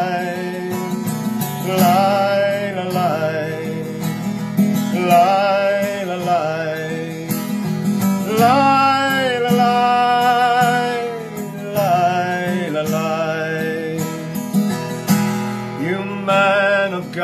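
Folk song on acoustic guitar: steady strummed chords under a melody of long, wavering held notes that break every second or two.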